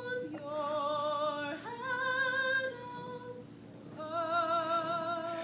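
A voice singing a few long, wordless held notes with vibrato, stepping slowly between pitches, with a short pause before the last note.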